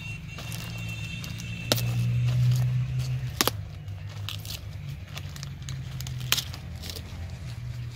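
Large cauliflower leaves and stalk rustling and crackling as a freshly picked head is handled, with three sharp snaps along the way. A steady low hum runs underneath.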